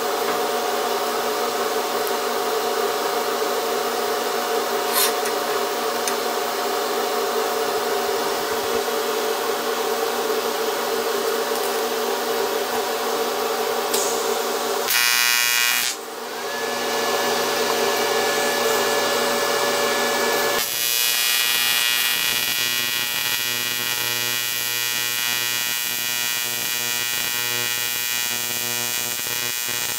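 Steady buzzing hum that changes character abruptly about 15 seconds in and again about 21 seconds in. In the later part it is an AC TIG welding arc buzzing on an aluminum lap joint as filler rod is fed in.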